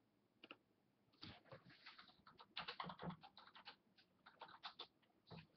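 Crinkling and crackling of clear plastic shrink-wrap and light cardboard handling as a sealed hockey card box is unwrapped and opened: dense, irregular clicks and crackles from about a second in, thinning out near the end.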